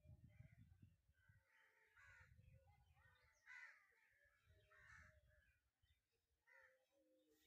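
Faint cawing of crows, a scatter of short calls over near silence, with a few soft low rumbles.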